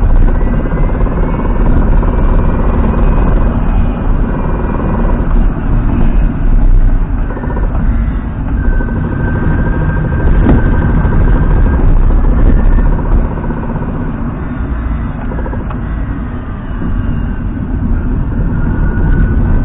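Hyundai Ioniq Electric's drivetrain picked up by a microphone inside the front motor compartment while driving: a loud low rumble of motor, reduction gear and road, with a faint high whine that comes and goes. This is the noise the owner is complaining about, loudest at low speed and on load changes, which Hyundai means to cure by turning a shaft in the reduction gearbox 180 degrees.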